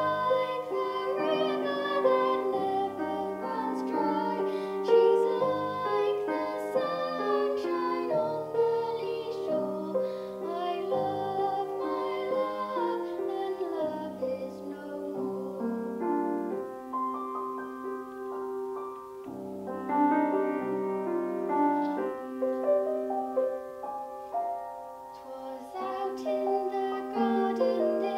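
A young girl's solo voice singing a classical song, accompanied on grand piano.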